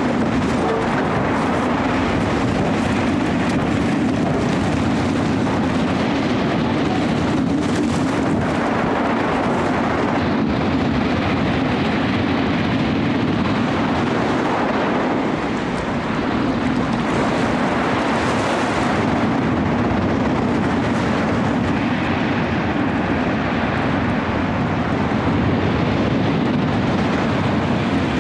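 Storm wind and heavy surf on the open sea, making one steady, unbroken rushing noise.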